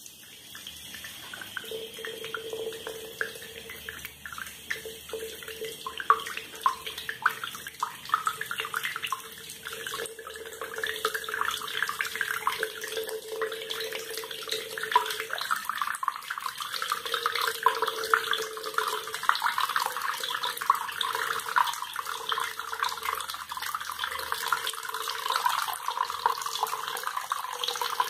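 Water from a bathroom tap running into the sink, splashing into blue-tinted water pooled around the drain, growing louder about a third of the way in. A steady tone comes and goes beneath the splashing.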